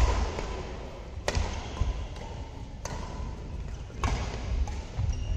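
Badminton rackets striking a shuttlecock in a doubles rally: four sharp hits, one about every second and a half, with lighter hits between them. Feet thud on the court floor underneath.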